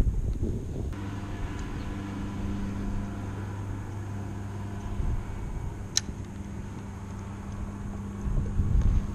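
A steady engine hum, with wind buffeting the microphone at the start and again near the end, and a single sharp click about six seconds in.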